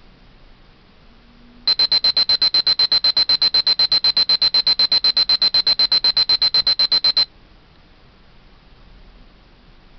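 Tanita TD-379 digital kitchen timer sounding its end-of-countdown alarm: a fast run of high, single-pitched beeps, about eight a second, for five or six seconds. It starts as the display reaches zero and cuts off suddenly.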